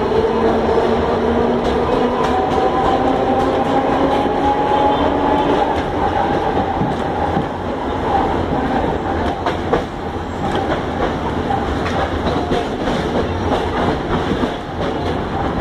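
Heliopolis electric tram running along the line, heard from inside the driver's cab: a motor whine rises slowly over the first several seconds and then fades. Throughout there is a steady rumble, with irregular clacks and knocks from the wheels over the rail joints and points, busiest in the second half.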